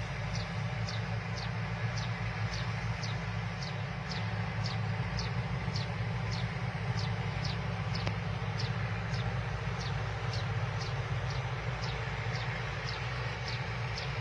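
Combine harvester running steadily, its engine a low steady drone, with a short high squeak repeating evenly about twice a second.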